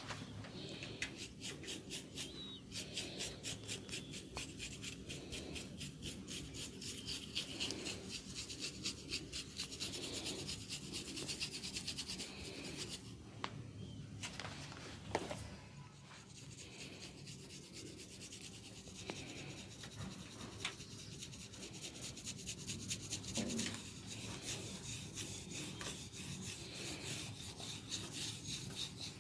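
Hands rubbing an oiled scalp and hair in a fast, rhythmic head massage, with quick even strokes, and a single sharp click about halfway through.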